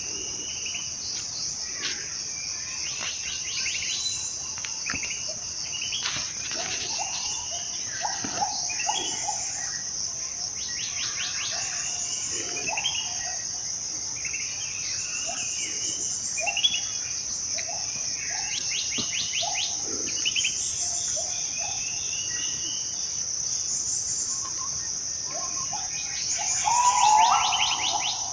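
Bornean rainforest chorus: a steady high-pitched insect drone, with many birds calling over it in short whistled notes and rapid trills. A louder burst of calls comes near the end.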